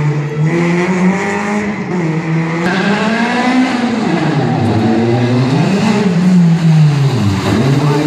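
Competition hatchback's engine revving hard, pitch climbing and dropping away again and again as the car accelerates and lifts through a tight gymkhana course, with sharp drops about four, five and seven and a half seconds in.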